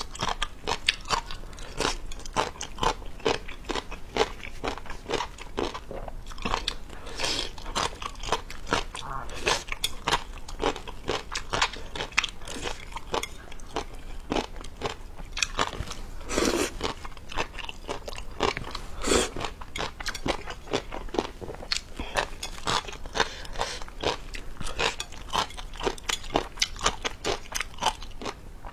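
A person chewing and biting into spicy noodles and small shrimp, close to a clip-on microphone: a steady run of wet mouth clicks and crunches, with two louder ones about halfway through.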